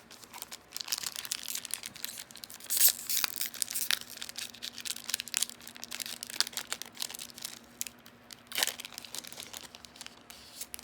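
Foil wrapper of a Yu-Gi-Oh! trading card booster pack being crinkled and torn open by hand, an irregular run of crackles with a few sharper tearing rips, the loudest about three seconds in and again near the nine-second mark.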